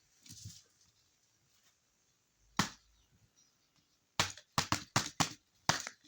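Sharp percussive strikes: one single hit, then from about four seconds in something is beaten in a quick, uneven rhythm of roughly three or four hits a second.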